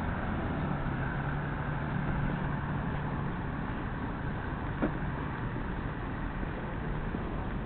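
Steady rumbling noise of a camera on the move along a street, with a faint low hum for the first few seconds and a single click a little before five seconds in.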